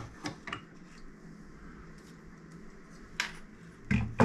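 Light clicks and taps of a CD player's transport mechanism being lifted off its suspended mount, then a sharp click about three seconds in and a louder knock near the end as it is handled.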